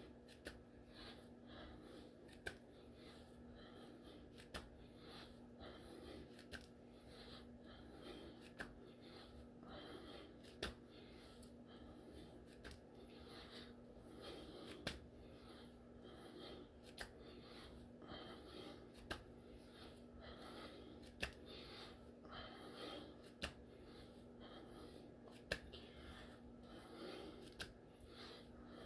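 A man's faint breathing through a set of push-ups, with a short sharp click or puff about every two seconds, one for each repetition.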